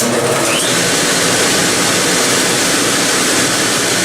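Draft inducer fan of a Burnham low-pressure steam boiler starting suddenly and then running with a steady rush of air as the boiler calls for heat and begins its pre-ignition checks, with a brief rising whine about half a second in.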